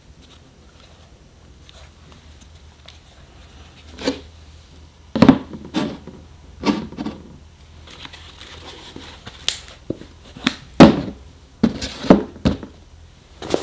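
A gold Contax T2 compact film camera and its box being handled on a desk: after a few quiet seconds, a string of about ten soft knocks, taps and scrapes as the box is set down and the camera is placed on it. The loudest knock comes about eleven seconds in.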